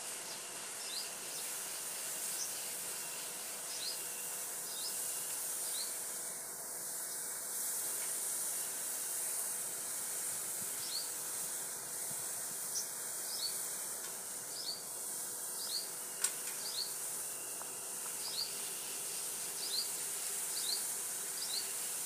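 Thin sugar syrup simmering in an iron kadhai over a wood fire, a steady bubbling hiss. Birds chirp throughout, short falling notes coming in little clusters.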